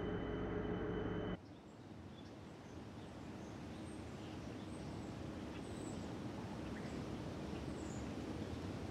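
A steady hum of several held tones cuts off abruptly about a second in. It gives way to a quieter outdoor ambience: an even hiss that slowly swells, with scattered faint bird chirps.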